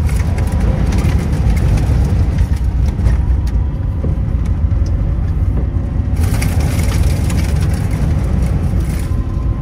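Strong wind buffeting the microphone in a heavy, gusting low rumble, with a faint steady machine hum underneath.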